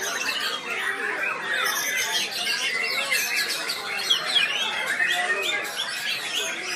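Many caged songbirds singing and chirping at once in a dense, continuous chorus of short, quick, overlapping calls.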